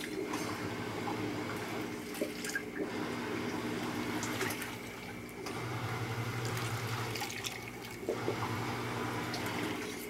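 Top-loading washing machine running with its lid open: a steady rush of water in the drum, with a low hum that comes and goes in the second half.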